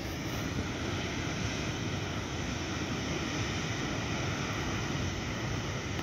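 Waterfall rushing steadily, a constant wash of falling water over rock.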